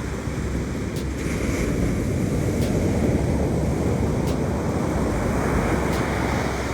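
Surf washing up on a beach, the wash swelling and then easing, with wind rumbling on the microphone.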